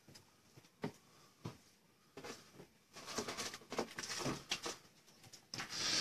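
Quiet handling noises: scattered light taps and clicks with faint rustling, spaced out at first and coming more often in the second half.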